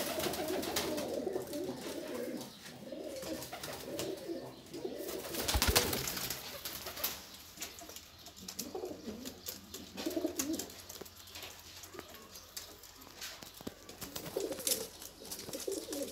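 Domestic pigeons cooing in several bouts with pauses between. A brief loud rustling noise comes about five and a half seconds in.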